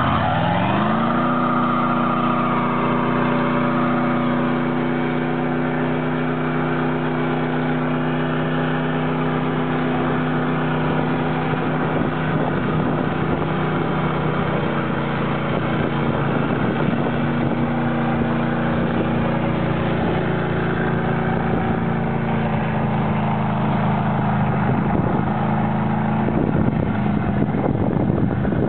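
Old Dodge pickup's 360 small-block V8 revving up over about a second and then held at high revs for a long burnout as the rear tyres spin on the pavement. Near the end the engine note breaks up and falls away.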